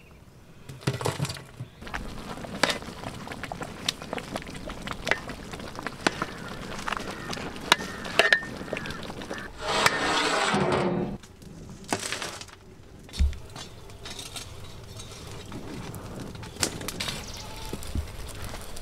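Clatter of metal tools and lids on large aluminium cooking pots, with knocks and crackles as burning coals are heaped onto the pot lids for dum cooking. There is one longer, louder scrape about ten seconds in.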